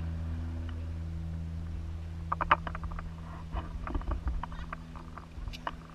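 Steady low hum of airflow over the camera during a tandem paraglider glide, fading gradually. About two seconds in, scattered clicks and rattles from the harness and gear begin.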